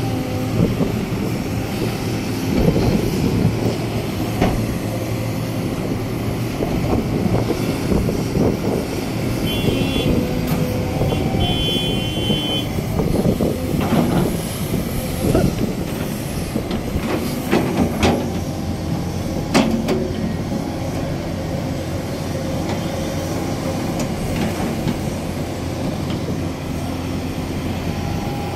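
Sumitomo crawler excavator's diesel engine running steadily as the machine works, with a few sharp metallic clanks in the second half. Two short high-pitched beeps sound near the middle.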